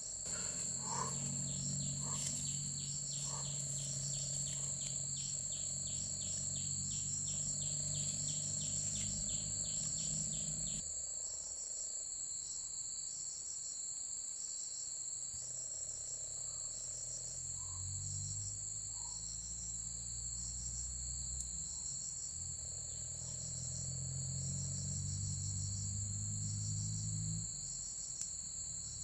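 Insects chirping without a break: a continuous high trill with short pulsed chirps repeating a little more than once a second. A low steady hum comes and goes underneath, stopping about a third of the way in and returning for the second half.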